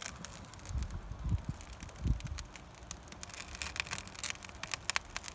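Wood fire crackling in a barbecue smoker, with irregular sharp pops and a low wind rumble on the microphone.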